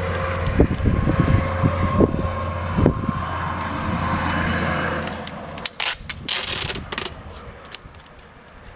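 Hands knocking and clicking on the truck door, then box tape ripped off the roll in a few quick, loud pulls near the end.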